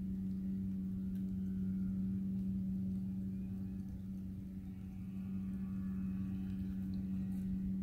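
A steady low mechanical hum, as of a running motor, holding one pitch without change, over a low rumble.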